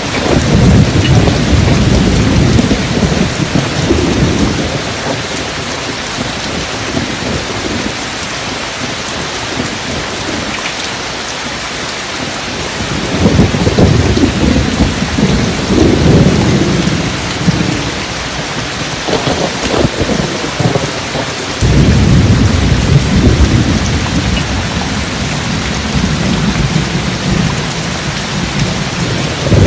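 Steady heavy rain with deep rolling thunder. Long low rumbles swell three times: at the start, about halfway through and about three-quarters through.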